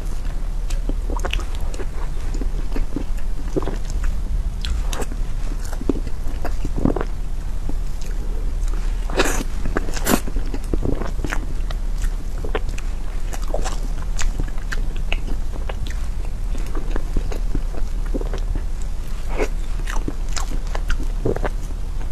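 Close-miked eating of soft cream cake with a metal spoon: scattered wet mouth clicks and spoon scrapes through the cream, with a few louder clicks near the middle, over a steady low hum.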